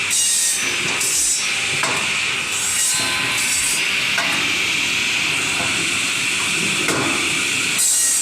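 A wood-processing machine working through timber: a steady high hiss of cutting, with short noisy surges about once a second.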